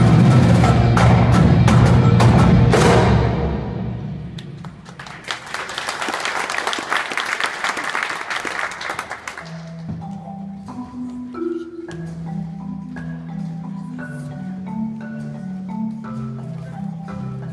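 Live percussion ensemble music: the full drumline and front ensemble play a loud hit with cymbal crashes and deep bass, which rings away over the first few seconds. A shimmering cymbal wash then swells and fades, and from about ten seconds in, marimbas play a quieter melodic passage of mallet notes.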